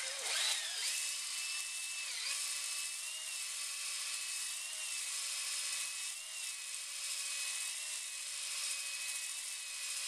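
Cordless drill spinning a flexible ball hone inside a lightly oiled cylinder bore of a Land Rover 300Tdi engine, deglazing the bore. A steady motor whine with a scratchy hiss from the abrasive stones, its pitch wavering slightly every second or two as the hone is worked up and down.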